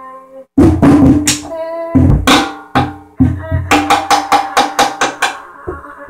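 Drum kit being played: loud drum and cymbal hits start about half a second in, then a quick even run of strikes near the end, with a sustained pitched musical note sounding underneath.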